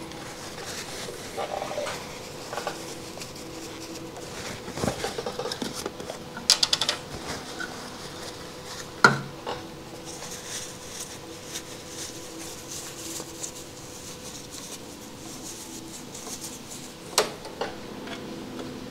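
Hands fitting small parts and fuel-line tubing on a motorcycle: scattered light clicks, taps and rustles over a faint steady hum, with a quick run of sharp clicks about six seconds in, one sharp click about nine seconds in and another near the end.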